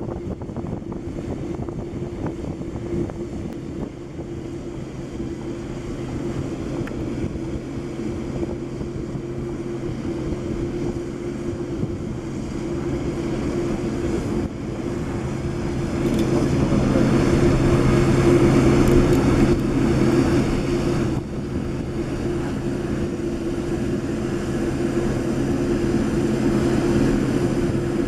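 Boeing 787 Dreamliner's General Electric GEnx turbofans running at taxi idle as the jet rolls past: a steady jet whine and rumble, with two sustained tones. The sound swells louder for a few seconds about two-thirds of the way through, then drops off sharply.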